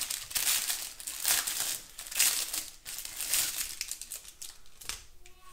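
Plastic packaging bag crinkling in several bursts as it is handled and opened, quieter after about four seconds, with a single light click near the end.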